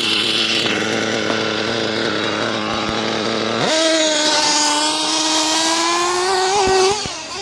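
Small two-stroke nitro engine of a Losi 8IGHT-T 3.0 RC truggy idling steadily. About three and a half seconds in it is throttled up sharply and held at a high, slowly rising pitch, then backs off near the end.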